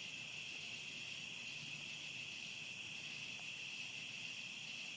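Steady, faint, high-pitched chorus of insects. The highest strand breaks off briefly about two seconds in and again near the end.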